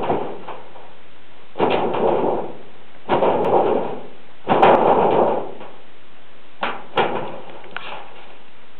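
A dog pawing and nosing at the edge of a bent sheet of metal lying on the ground, giving about five short bursts of scraping and knocking, each under a second long.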